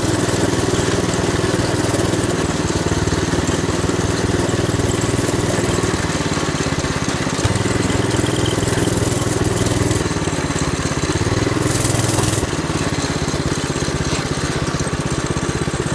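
Mini bike's small engine running while being ridden, its note rising and falling with the throttle several times, then settling a little quieter for the last few seconds.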